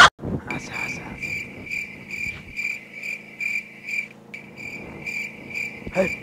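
Cricket chirping steadily at night, about three chirps a second, with a short break about four seconds in. A brief low sound comes near the end.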